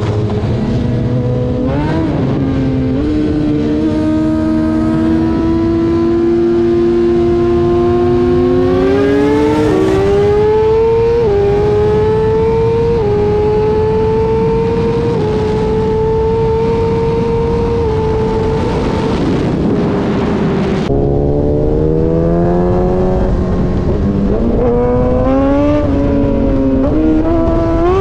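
A sport motorcycle's engine pulling hard through the gears at speed, its pitch climbing and dropping back at each shift, then holding steady at high revs over a constant rush of noise. After an abrupt break about three-quarters of the way in, another run of engine notes climbs through several quick gear changes.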